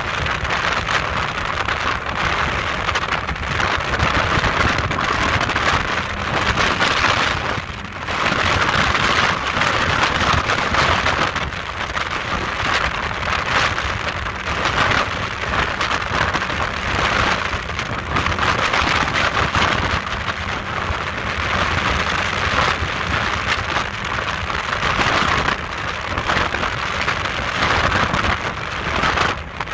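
Speedboat running fast across open water: a loud rush of wind and water noise with the engine underneath, swelling and easing every few seconds.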